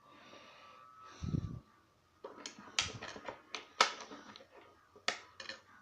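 Lock pick and tension tool clicking in a challenge lock's keyway as it is picked: a run of sharp, uneven metallic clicks from about two seconds in, after a short low thud about a second in.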